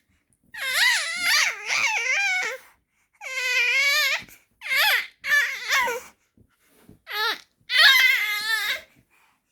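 Baby squealing in a series of about six high-pitched, wavering cries with short pauses between them: excited, happy vocalizing that sounds like a whale or dolphin call.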